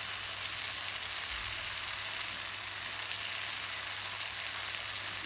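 Chicken-and-vegetable stir-fry in sauce sizzling steadily in a non-stick pan on the stove.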